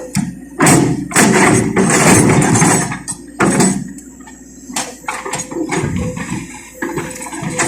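Excavator at work: its engine running, with loud surges of noise in the first half, then quieter with scattered knocks.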